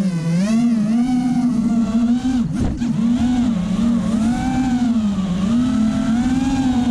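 The four Racerstar BR2205 2300kv brushless motors and propellers of a 5-inch FPV race quadcopter buzzing in flight, heard from the camera on the drone itself. The pitch keeps swinging up and down with the throttle. About two and a half seconds in, the buzz drops sharply and comes straight back as the throttle is chopped and punched again.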